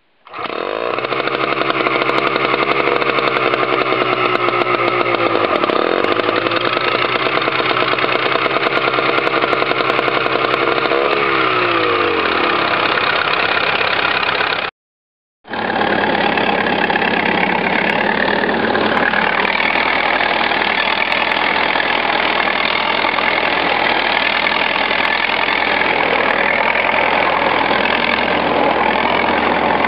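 Engine of an old Niva combine harvester running, its pitch sagging briefly about five seconds in and again around eleven seconds. After a brief cut-out in the sound halfway through, the engine runs on steadily.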